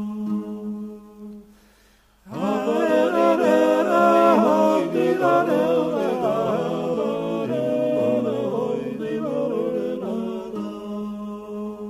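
Gurian folk song sung a cappella by several voices in close polyphony. A held low drone dies away about two seconds in, then the voices enter together with moving, interweaving lines, and near the end they thin back to a held drone.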